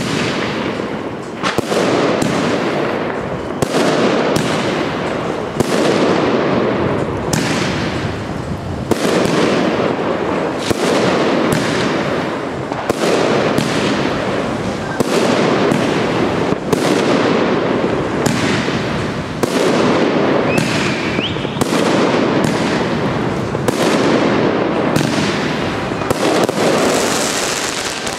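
Lesli 'Olga' XXL firework battery (cake) firing in a continuous string of sharp bangs, roughly one a second, over a steady hiss.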